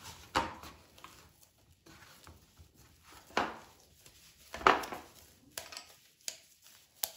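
Hands kneading a soft dough of mashed boiled potato, cornflour and oil in a bowl, the dough pressed and slapped against the bowl. It gives about half a dozen separate dull knocks and squelches, the loudest a little past halfway.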